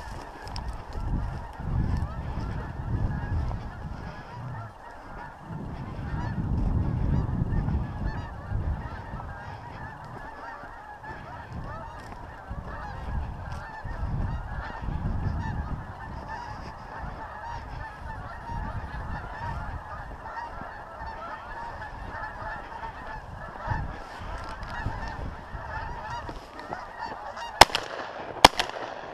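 A large flock of geese honking continuously overhead. Wind rumbles on the microphone through the first half, and near the end two shotgun shots go off about a second apart, a double.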